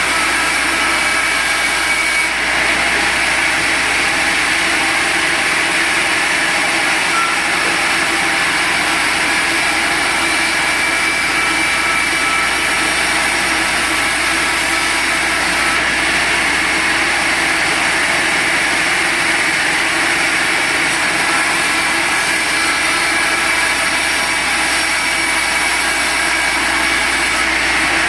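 Sawmill machinery running with a loud, steady noise and slight shifts in tone every several seconds.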